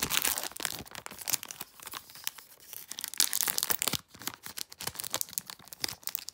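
A foil Magic: The Gathering Kaldheim set booster wrapper being torn open and crinkled by hand, in irregular crackling tears with a brief lull about four seconds in.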